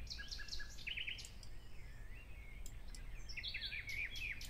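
Faint bird chirps: clusters of short, quick chirps in the first second and again near the end, over a low steady hum.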